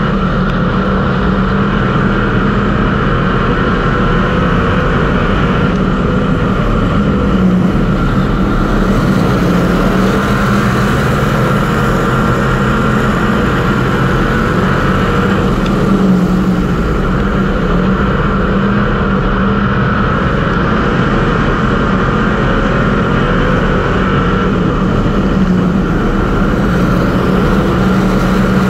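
Street stock race car's V8 engine heard from inside the cockpit, running loud and steady at a nearly even pitch.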